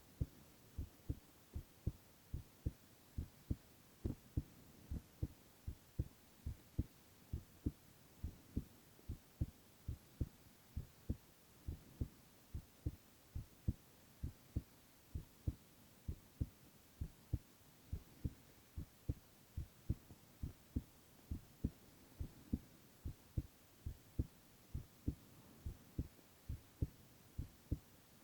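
A man's heartbeat, a steady lub-dub rhythm of paired low thumps a little over once a second, over a faint hiss.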